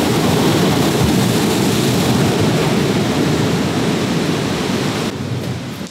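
Ocean surf breaking close by, a loud steady rush with wind rumbling on the microphone. About five seconds in it falls away to a quieter sound.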